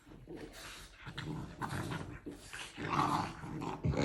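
Two French Bulldogs playing together, making short, irregular dog noises.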